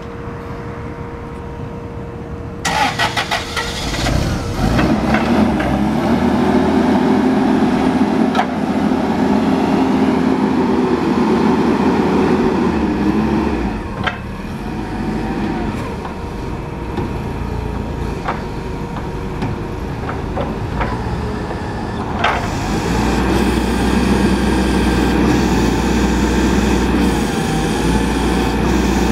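Toyota 8FGU15 LPG forklift engine starting about three seconds in with a short rattle of cranking, then running. It works harder in two long stretches as the mast hydraulics lift the triple mast, with a few sharp clicks between.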